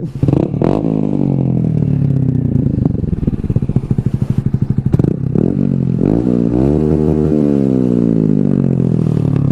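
Honda Grom's small single-cylinder engine revving with something fitted over its exhaust as a makeshift 'super quiet exhaust': a blip just after the start that slowly sinks back, a second rev about six seconds in held for a second then dropping, and another rise near the end.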